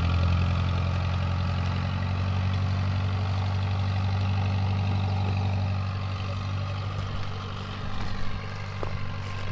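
Tractor engine running steadily under load while pulling a mounted four-row corn planter, growing fainter after about six seconds as it moves off across the field.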